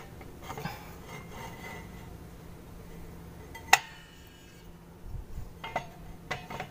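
Steel parking brake drum being handled and worked over the brake shoes by hand. A single sharp metallic clink rings out a few seconds in, and several lighter metal knocks follow near the end as the drum is pushed onto the hub.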